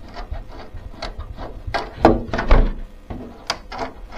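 Thin polycarbonate RC car body shell being handled and worked with a reamer: a string of irregular plastic clicks and knocks, the loudest about two seconds in.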